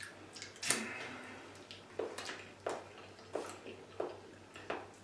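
People chewing banana fast, with a run of short wet mouth smacks about every two thirds of a second.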